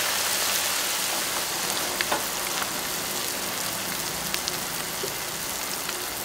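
Battered mussel pancake deep-frying in a wok of hot oil: a steady sizzling hiss with a few small pops and crackles.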